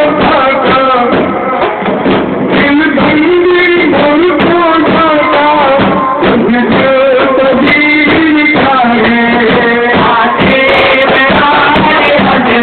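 A group of men chanting a Sufi rateeb (Rifai devotional chant) in unison, with rapid, steady frame-drum (daff) beating under the voices.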